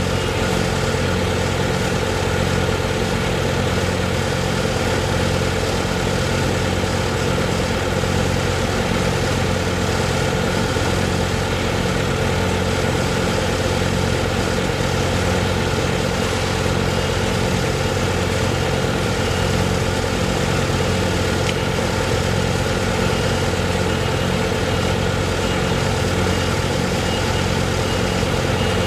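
A large engine running steadily at idle, with an even low hum and a slight regular pulse.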